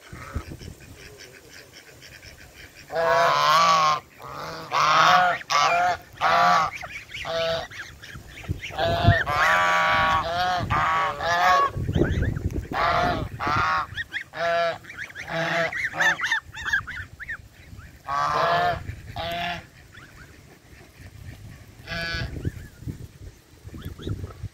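Domestic geese honking, many short calls in quick clusters from several birds at once, starting about three seconds in and thinning out to a single honk near the end.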